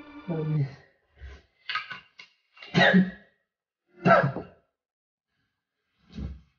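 A man's voice gives a short falling groan, then a string of loud, breathy sighs about a second apart, with silence between them.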